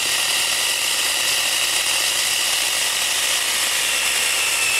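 Narion 10-inch 21 V cordless electric chainsaw cutting through a firewood log: a steady high motor whine over the rasp of the chain in the wood. It cuts through easily, the whine dipping slightly in pitch near the end.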